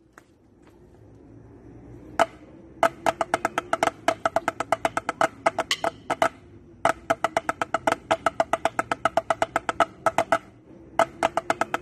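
Drumsticks on practice pads playing a fast bass drumline cadence: a single stroke about two seconds in, then dense runs of sharp, woody clicks that stop briefly twice.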